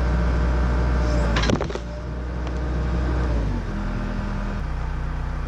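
Backhoe's diesel engine working under load, with a sharp clank about a second and a half in. It then settles to a lower, steady running speed.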